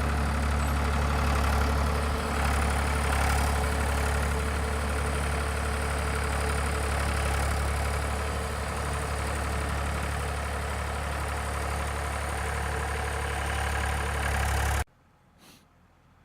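New Holland LS180 skid steer's diesel engine running steadily just above idle, its throttle frozen there. It cuts off suddenly near the end.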